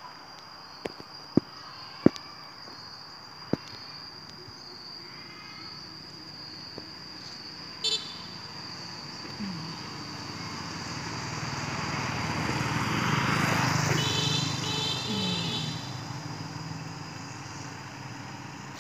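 A motorcycle passing on the road, growing louder to a peak a little past halfway, then fading. Under it runs a steady high-pitched tone, and a few sharp clicks come in the first few seconds.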